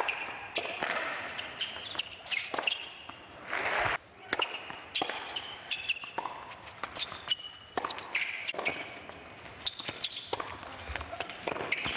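Tennis rally on an indoor hard court: a string of sharp racket hits and ball bounces, with short squeaks of shoes on the court in between.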